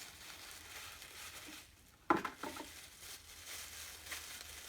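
Packaging being opened by hand: faint rustling and crinkling of wrapping. A short pitched sound, the loudest moment, comes a little over two seconds in.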